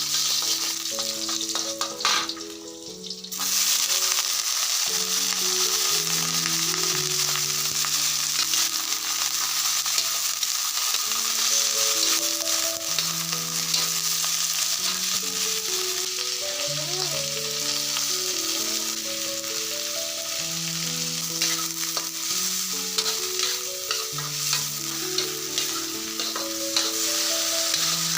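Food frying in hot oil in a pan: a steady sizzle that fades briefly about two seconds in, then comes back louder. A slow, soft melody plays underneath.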